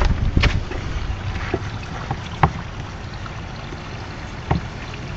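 Irregular clicks and knocks of hands handling an outboard's rubber fuel line and primer bulb, with the engine not running.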